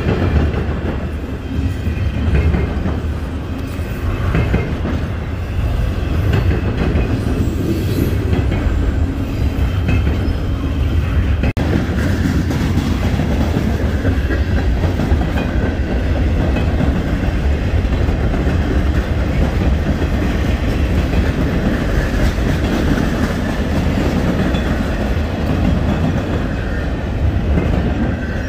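Freight train cars, double-stack container well cars among them, rolling past close by: a steady, loud rumble of wheels on rail with clickety-clack over the rail joints.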